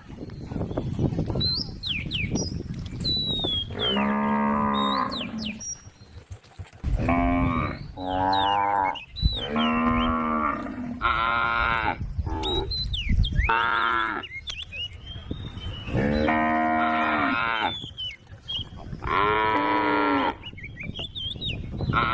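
Cattle mooing repeatedly: a run of long calls, each about half a second to a second and a half, starting about four seconds in and following one another closely.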